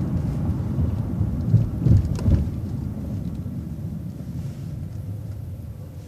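Low rumble of a city bus's engine and road noise heard on board, with a few heavy thumps about two seconds in, slowly growing quieter.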